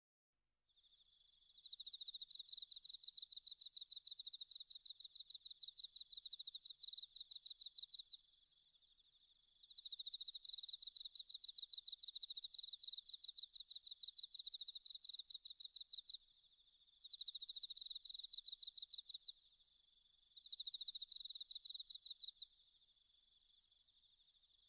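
Faint, rapid high-pitched insect trilling, cricket-like, in repeated bouts of a few seconds each over a steady background hum of the same insects, beginning just after a brief silence.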